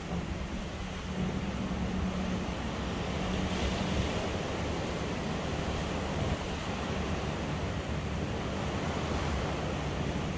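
Ocean surf washing onto the beach, a steady rushing wash with wind on the microphone, swelling briefly a little under four seconds in.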